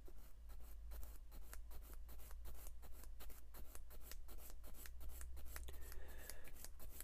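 Small sanding stick rubbed in quick short strokes against a tiny plastic model-kit part, a rapid dry scratching of about six strokes a second.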